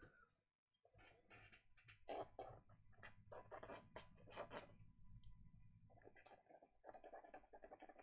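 Faint scratching of an ink-dipped drawing tool on watercolour paper, in several short strokes of different lengths.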